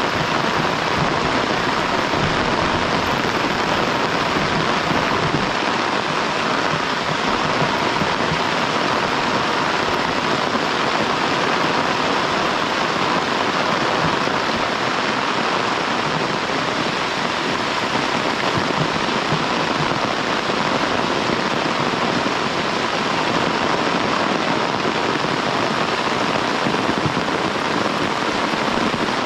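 Heavy rain falling steadily: a dense, even hiss of drops that never lets up.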